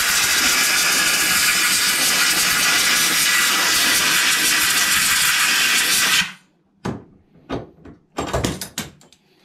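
Compressed-air blow gun blowing out a lawnmower carburettor's float bowl to clear out debris: a loud, steady hiss that cuts off about six seconds in. A few light knocks follow near the end.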